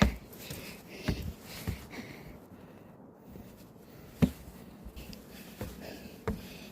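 Footsteps climbing stairs, irregular thuds a second or more apart, with a person's heavy breathing from the effort of the climb.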